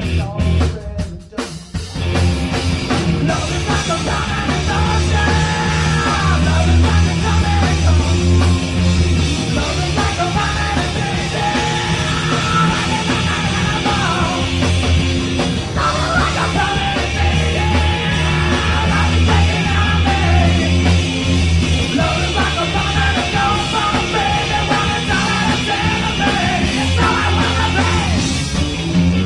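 Live rock band playing: drums, bass and electric guitar under a singer. After a few separate hits with short breaks in the first two seconds, the full band comes in and plays steadily.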